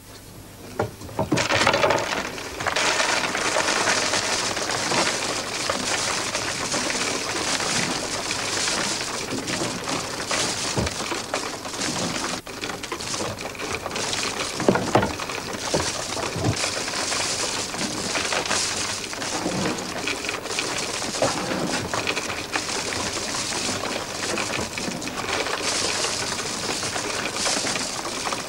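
A long, continuous shower of cardboard jigsaw pieces pouring down from a tipped-over box and pattering onto the floor and a growing heap of pieces. It starts with a knock about a second and a half in and keeps going as a dense rattle of small clicks.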